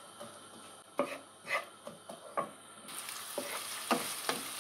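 A wooden spoon stirs and scrapes chopped onion around a non-stick pan, about two strokes a second, as the onion fries in hot oil. The oil's sizzle grows louder about three seconds in.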